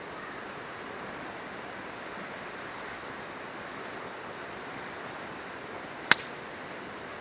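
Steady rushing of river water, with a single sharp pop from the burning firewood of a campfire about six seconds in.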